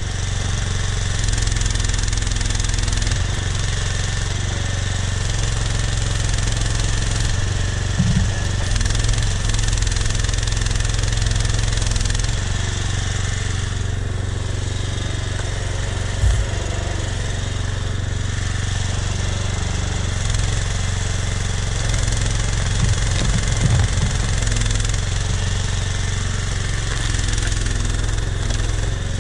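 Springer Max Pro mini excavator's engine running steadily as the machine digs out and lifts a tree stump, with a few brief knocks along the way.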